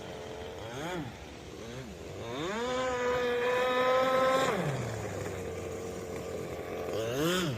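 A two-stroke RC boat engine heard across a pond as its throttle is worked. It gives a short blip about a second in, revs up to a held high pitch for a couple of seconds, drops back to a low run, and blips up again near the end.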